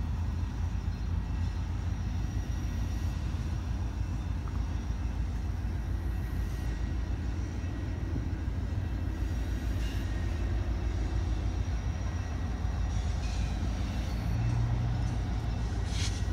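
Diesel-electric locomotive off to one side, running with a steady low rumble that gets a little louder near the end.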